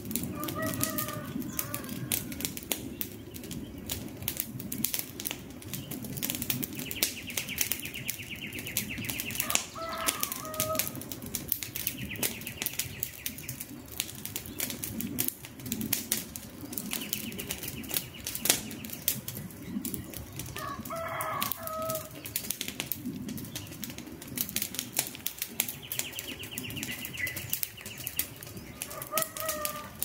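Small wood campfire crackling, with frequent sharp pops and snaps over a low rustle of flames. A bird calls briefly about four times, roughly ten seconds apart, and a high buzzing trill comes and goes in between.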